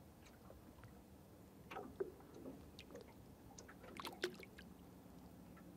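Faint, scattered small splashes and drips of water as a small seven-gill shark, hooked and hanging on the line, twists at the water's surface.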